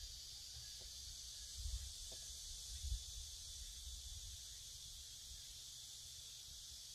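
Quiet outdoor ambience: a steady, even high hiss of insects chirring, over a low rumble that swells briefly twice, about one and a half and three seconds in.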